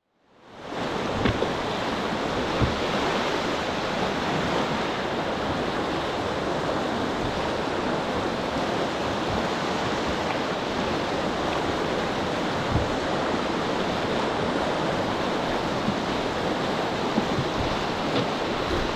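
River whitewater rushing around a canoe: a steady, even rush from a standing wave in the rapids that fades in over the first half-second, with a few faint knocks.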